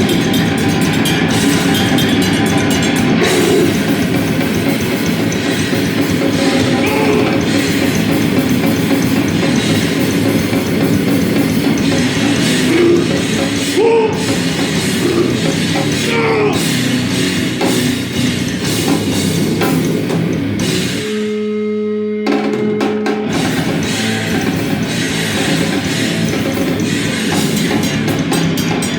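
Live band playing loud, distorted heavy rock with drum kit and guitar. About two-thirds of the way through, the wall of sound drops out for about two seconds, leaving a single held note, then the band comes back in.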